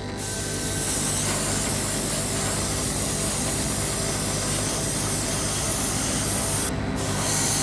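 Gravity-feed airbrush spraying flat black undercoat paint: a steady air hiss that breaks off briefly near the end, then resumes.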